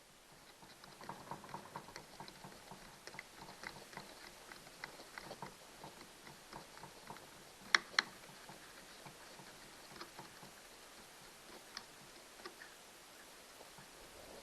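Light, irregular metal clicks and ticks of an open-end wrench turning out two small screws on a Stihl 029 chainsaw's carburetor, with two sharper clicks close together about eight seconds in.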